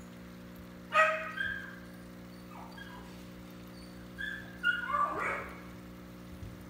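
A dog yipping: a short cluster of high yips about a second in, the loudest sound, and another cluster between about four and five seconds in, over a steady low hum.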